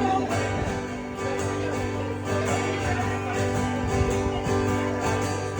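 Live country music: strummed acoustic guitar carrying the song through a short instrumental gap, with no singing.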